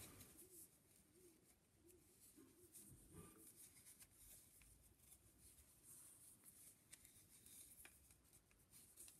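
Near silence: room tone with a few faint clicks and rustles from bamboo knitting needles purling chunky wool.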